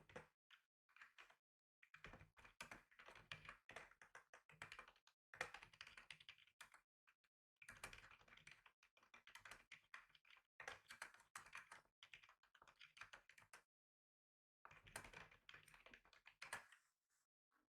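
Quiet, fast typing on a computer keyboard in long runs of rapid key clicks, starting about two seconds in, with a brief pause near the end before a last short run.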